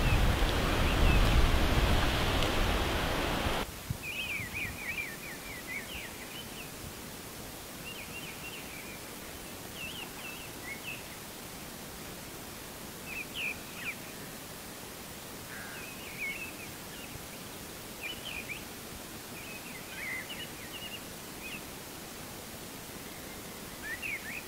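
A loud rushing noise cuts off suddenly about four seconds in. Woodland birds then sing over a quiet outdoor background, in short chirped and trilled phrases every second or two.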